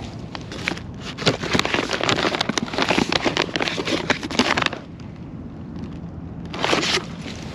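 Brown paper cookie bag crinkling and rustling as it is handled and a hand reaches inside. A dense crackle lasts about four seconds, and a shorter rustle comes near the end.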